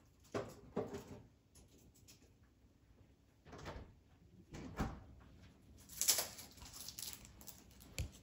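Scattered light knocks and clatters of coffee gear being handled, with a brief rustle about six seconds in and a sharp click near the end.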